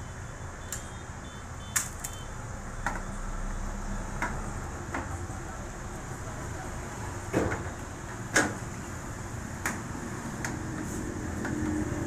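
Scattered plastic clicks and knocks, the loudest two about seven and eight seconds in, as the detergent drawer and control-panel housing of an IFB Elite front-load washing machine are handled and prised with a screwdriver, over a steady low hum.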